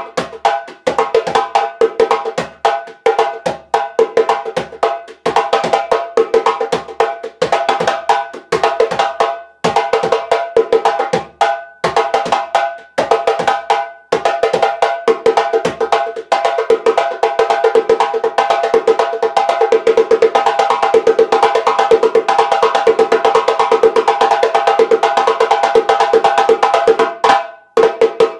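Djembe with a Guinea lenke wood shell and thick goat-skin head, played by hand: a fast rhythm of ringing strokes. The strokes get denser into a near-continuous run in the second half, then break off shortly before the end.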